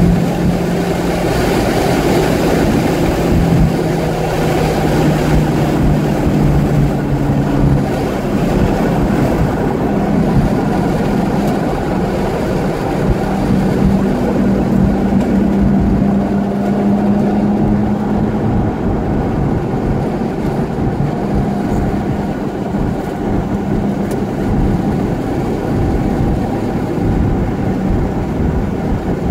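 Chevrolet Corvette C5's V8 engine running at track speed, heard from inside the cabin over heavy wind and road noise, its note shifting in pitch about a quarter of the way in.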